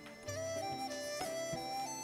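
Traditional-style instrumental background music: a slow melody that steps from one held note to the next, with a few sharp knocks.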